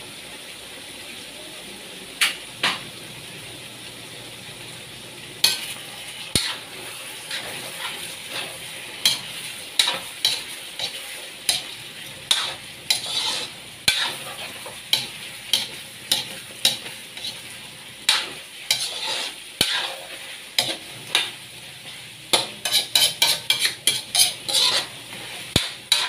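Chicken pieces sizzling in a large aluminium wok while a metal ladle stirs them, clacking and scraping against the pan. There is a quick run of strokes near the end.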